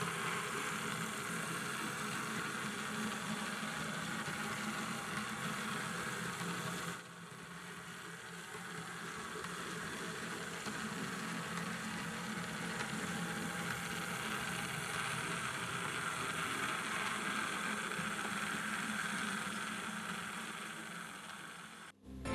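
Märklin 37000 H0 model of a DB class 212 diesel locomotive running along the track, a steady mechanical running sound. The level drops suddenly about seven seconds in and fades near the end.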